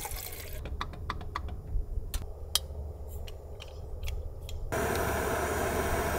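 Light, irregular clicks and taps of camp cooking gear being handled, about fifteen over four seconds, like typing. About three-quarters of the way through a steady hiss starts abruptly and carries on.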